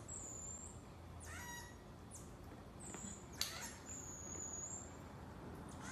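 A marmoset calling: a few thin, very high whistles, the longest a little over a second, mixed with short rising chirps.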